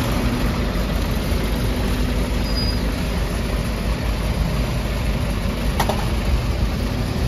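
Volvo B5LH hybrid double-decker bus pulling away from the stop, its engine running steadily amid street traffic.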